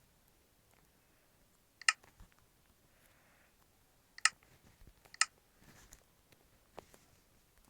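Three sharp, very short clicks at uneven intervals, all with the same ringing, metallic-bright character, followed by a fainter tap near the end.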